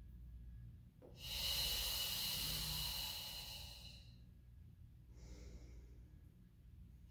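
A woman breathing hard during a Pilates pelvic tilt: a long, loud exhale lasting about three seconds starting a second in, a softer breath in around five seconds in, and the next long exhale starting at the end. The out-breaths are timed to the tilting of the hips.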